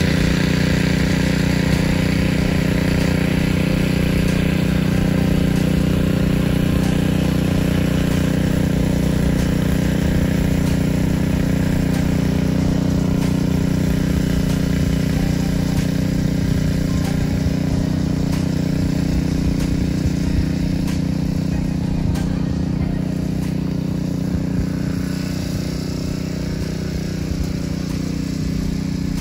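Small gasoline garden tiller (mini cultivator) running steadily as its tines churn the soil, its engine note getting a little quieter near the end as it moves away.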